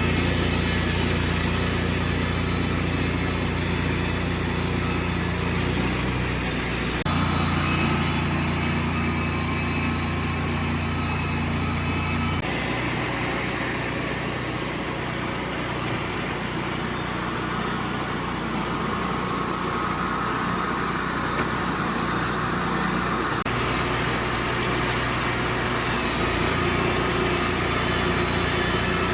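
Engine of a Wood-Mizer portable band sawmill running steadily while it works a log. Its note shifts abruptly a few times.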